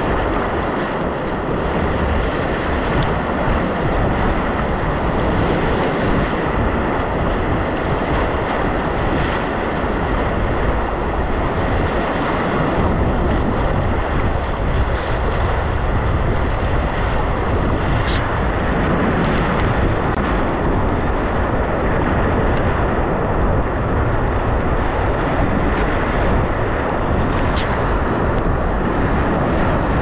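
Whitewater rapids rushing steadily and loudly around an inflatable kayak, with wind buffeting the microphone. A couple of brief sharp splashes come about two thirds of the way through and near the end.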